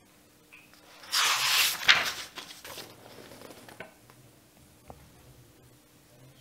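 Handling noise close to the microphone: a rustle lasting about a second and a half, with a sharp click in the middle, then a few faint ticks.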